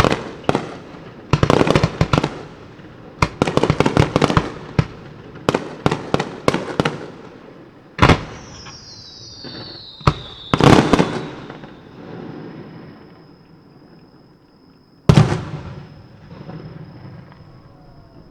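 Aerial fireworks shells bursting in rapid volleys of sharp bangs and crackles, with a falling whistle about halfway through, then thinning to a few single loud bangs.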